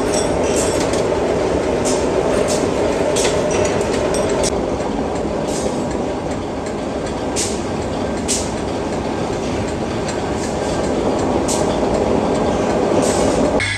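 Steady din of workshop machinery running, with scattered sharp metal clinks.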